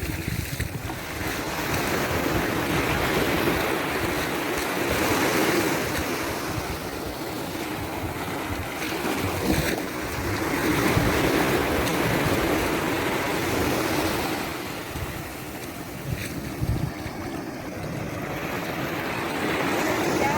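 Waves breaking and washing up a beach, swelling and ebbing every few seconds, with wind rumbling on the microphone.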